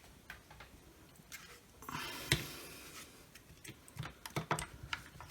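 Plastic clicks, knocks and rustling of a cordless tool battery being picked up and fitted to the partly reassembled circular saw, with a cluster of small clicks near the end.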